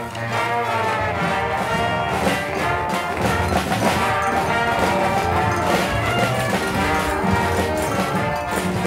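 Street brass band playing while marching: saxophones, trumpets and trombone over a sousaphone bass line and a drum beat.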